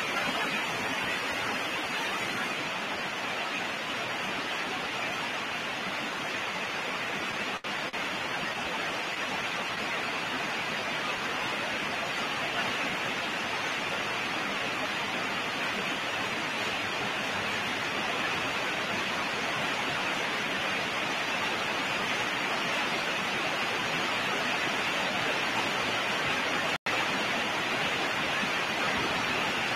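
Steady background hiss with no other sound; it dips briefly about a quarter of the way in and cuts out for an instant near the end.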